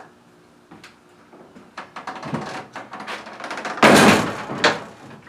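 A series of knocks and clicks, with a louder noisy burst lasting about half a second about four seconds in, followed by another sharp knock.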